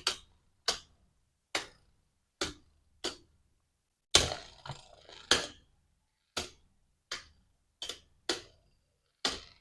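Two Beyblade spinning tops, Vanish Fafnir and Turbo Achilles, clashing in a plastic stadium as sharp plastic clicks. There are about a dozen hits, roughly one a second, with a brief rattling scrape a little past four seconds in.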